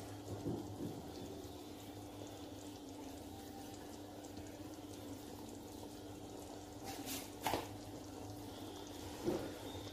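Pot of bean stew bubbling in red palm oil at a simmer, with a few louder bubbles popping about half a second in, about seven and a half seconds in and near the end, over a steady low hum.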